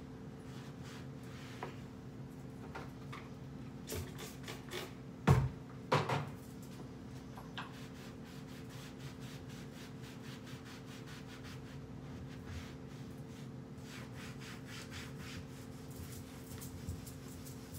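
A cloth rubbing over wooden kitchen cabinet doors in many short, repeated wiping strokes. Two loud knocks on the cabinets come about five and six seconds in, over a steady low hum.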